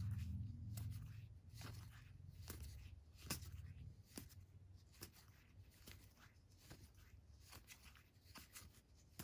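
Faint ticks and slides of slick-finish game cards being pushed apart one at a time in the hands, about once a second. A low rumble at the start dies away in the first second or two.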